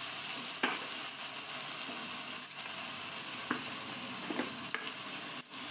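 Onions and turmeric powder frying in hot oil in a nonstick kadai: a steady sizzle, with a few light clicks of the spatula against the pan.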